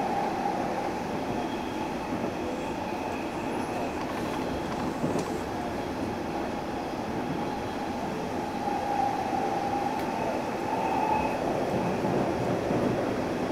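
Running noise inside a Hanshin 1000 series electric train travelling at speed: a steady rumble of wheels on rail and the running gear, with a faint higher whine that comes and goes.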